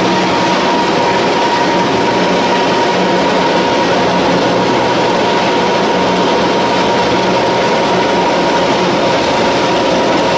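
Small animal feed pellet mill running steadily under load as ground feed is poured into its hopper and pressed into pellets: a loud, even mechanical din with a steady whine over it.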